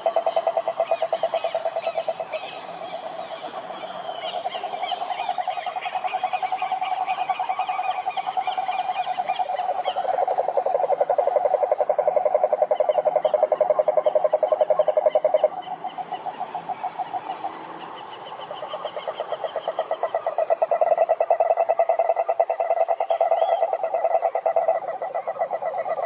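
Cane toads (Rhinella marina) calling in chorus: long, steady, low pulsed trills overlapping one another. One lower trill stops sharply about midway, and the chorus dips briefly before swelling again. Fainter, higher-pitched trilling runs above them.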